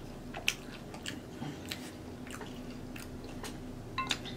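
Close-miked chewing of cheese-sauced nachos: soft, wet mouth clicks and smacks at irregular intervals, a few a second, with a slightly louder cluster about four seconds in.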